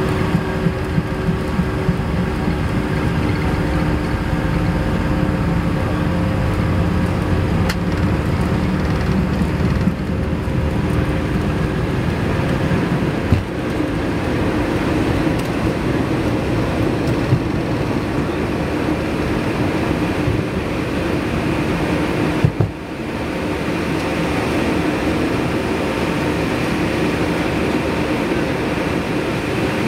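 McDonnell Douglas MD-90 jet heard from the cabin at takeoff thrust, a steady whine from its rear-mounted IAE V2500 turbofans over the heavy rumble of the takeoff roll. About three-quarters of the way through there is a brief thump and dip, and the low rumble then gives way to a smoother sound.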